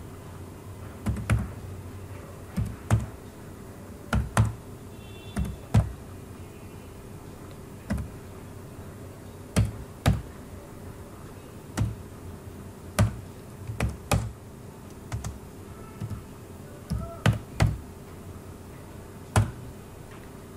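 Computer keyboard keys pressed slowly and unevenly, about twenty single clicks, often in quick pairs with pauses of a second or more between them, over a faint steady hum.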